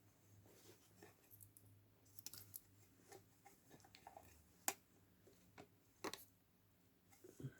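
Near silence with a faint low hum and a few scattered small clicks and taps of something being handled.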